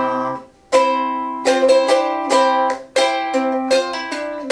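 A small ukulele playing a C chord phrase: a strum left to ring, then left-hand fingers briefly adding and lifting single notes (second string first fret, then third string second fret, the Csus4 and Cadd9 embellishment) before settling back on C. The phrase is played twice.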